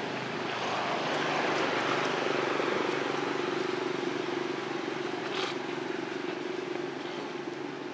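A steady motor hum with a low drone, growing a little louder about a second in and then slowly easing off.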